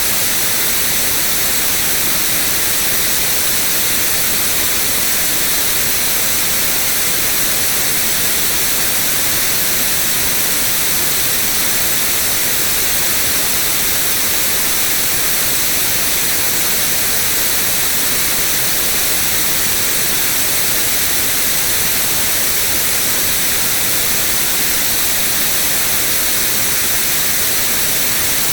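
Synthetic white noise: a steady, unchanging hiss, brightest in the treble.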